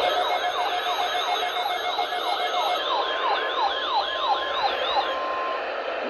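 Electronic siren-like alarm: a falling sweep repeating about three times a second, with a fast pulsing beep under it for the first half. About three seconds in, the steady 1050 Hz weather radio warning alarm tone joins and holds for about two and a half seconds. The sweeps stop just before the tone cuts off.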